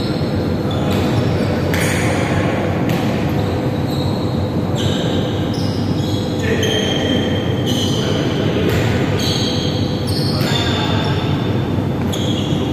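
Indoor volleyball game in a large echoing hall: a volleyball being struck and bouncing several times, over a steady background of players' voices and court noise.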